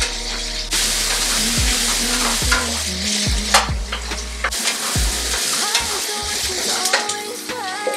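Cubes of food sizzling in a nonstick frying pan as they are stirred and turned with a wooden spatula, with a few light scrapes of the spatula against the pan.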